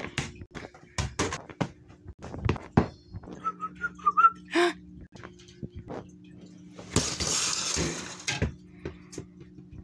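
A plastic Slinky Dog toy being handled, with a series of knocks and taps. A brief faint whistle comes near the middle, and about a second and a half of rustling hiss follows later.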